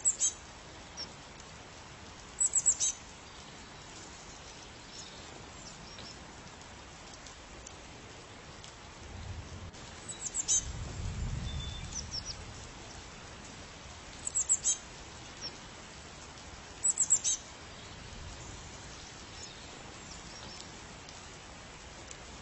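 A small bird giving short clusters of very high chirps every few seconds, over a steady hiss of outdoor noise. A low rumble swells and fades around the middle.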